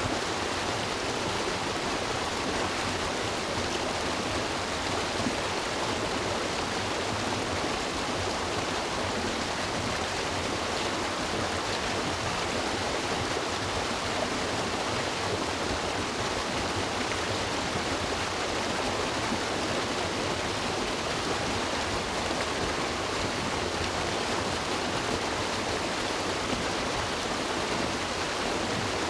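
River water rushing and splashing over rocks, a steady, even rush of flowing water.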